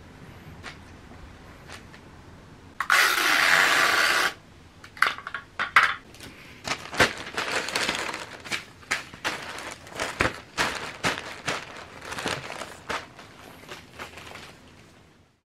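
Newspaper sheets rustling and crinkling as they are gathered up off the floor: a loud swish lasting about a second and a half about three seconds in, then a long run of crackles and crinkles.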